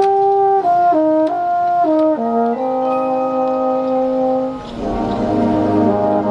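Marching band brass enter suddenly and loudly on a slow melody stepping downward note by note, settling on a held chord about two and a half seconds in. Near the end the low brass and the rest of the band come in under it with a fuller chord.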